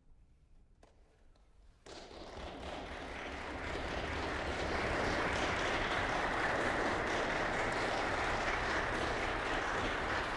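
Applause breaking out suddenly about two seconds in after a near-silent pause, building quickly and then holding steady.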